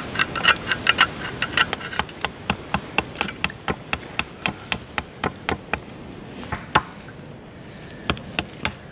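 A steel food can of beef stew being opened with a small hand can opener, a rapid run of sharp metallic clicks about three or four a second as it works around the lid; near the end the stew is tipped from the can into a metal pan.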